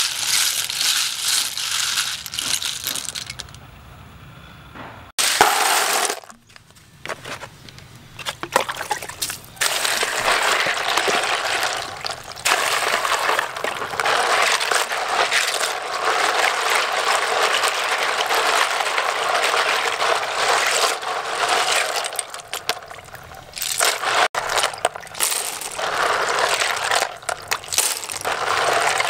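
Small snail shells clattering and clinking together as hands rub and stir them, with water splashing and sloshing as they are washed in a plastic basin.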